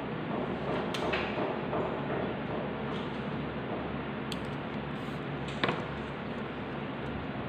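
Steady background hiss with a few light clicks of small craft tools handled on a table, the sharpest about five and a half seconds in.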